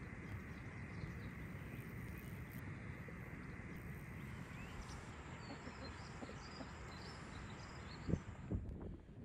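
Rural outdoor ambience: a steady low rumble of background noise with faint bird chirps a few seconds in. Near the end the rumble drops away and a few soft knocks follow.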